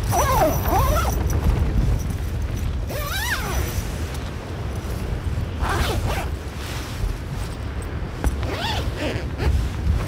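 Hilleberg Soulo tent's door zipper being pulled in short strokes, about four times, each a quick rising and falling rasp. Under it runs a steady low rumble of strong wind buffeting the tent.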